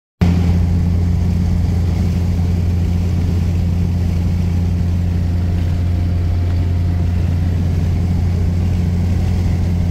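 Car driving at a steady cruising speed, heard from inside the cabin: a steady low engine drone with road noise that holds one pitch throughout.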